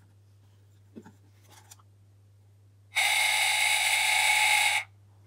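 Watering timer's small DC motor running through its plastic reduction gears for just under two seconds, starting about three seconds in and cutting off sharply: the motor driving the valve open after the dial is turned one click.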